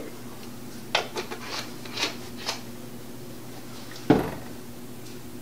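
Light clicks and taps of kitchen items being handled on a granite countertop, then one heavier knock about four seconds in, over a faint steady hum.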